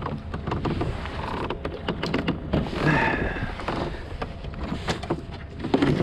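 Knocks, clicks and a short creak from a fishing kayak and its gear being handled and maneuvered, over a low wind rumble on the microphone.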